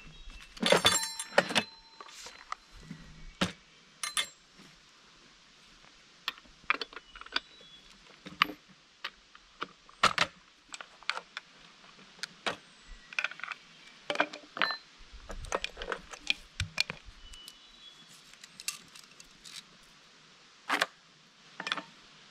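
Irregular metallic clinks, clicks and knocks from a chainsaw, its detached bar and the Granberg chainsaw mill's metal frame being handled. The loudest clinks, about a second in, ring briefly, and a few dull thuds come later.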